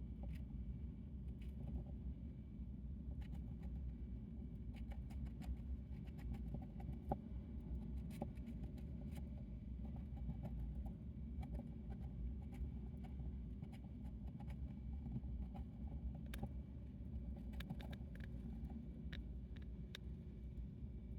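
Hamster nibbling and chewing pumpkin: many small, irregular crisp clicks over a steady low hum.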